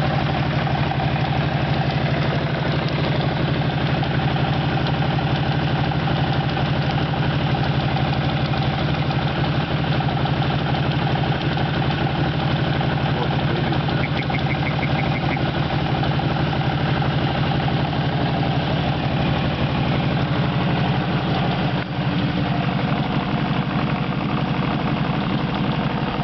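CFMoto X8 ATV's V-twin engine idling steadily after a cold start, still warming up. A brief run of fast light ticks comes about halfway through.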